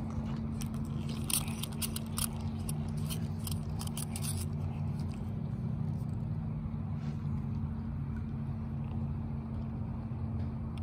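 A steady low motor hum with a constant pitch, starting abruptly and holding evenly, with light clicks and ticks over the first four seconds or so.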